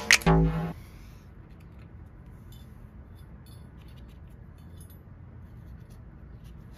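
Electronic background music cuts off within the first second, followed by faint low room tone with a few light, scattered clicks.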